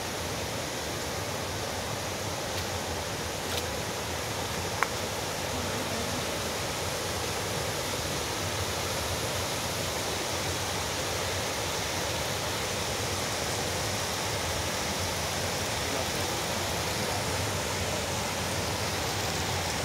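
Waterfall pouring steadily: an even rush of falling water. One brief sharp click about five seconds in.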